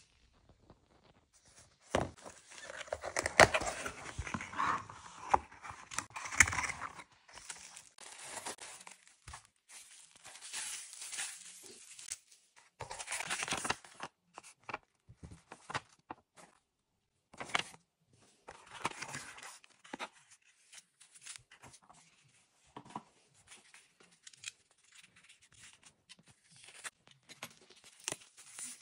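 Cardboard box and its paper and plastic wrappings handled and unpacked by hand: paper rustling and crinkling and tape tearing, in irregular short bursts with pauses between. The loudest stretch comes a couple of seconds in and lasts about five seconds.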